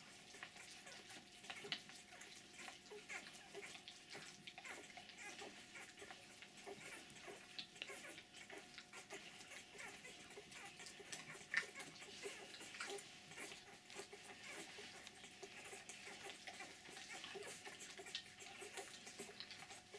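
Newborn puppies suckling from their mother: faint, irregular wet clicking and smacking sounds.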